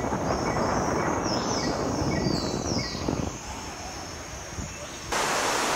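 Rushing water of the upper Iguazu River rapids, a steady noisy hiss with wind buffeting the microphone, with a few short, high, falling chirps between about one and three seconds in. It drops quieter a little after three seconds, then cuts abruptly to louder, brighter rushing water about five seconds in.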